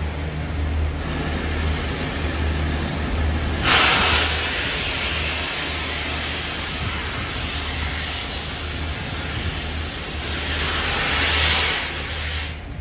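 GNR(I) compound 4-4-0 steam locomotive No. 85 Merlin letting off steam with a loud hiss over a low rumble. The hiss starts suddenly about four seconds in, swells again a second or two before the end, then stops sharply.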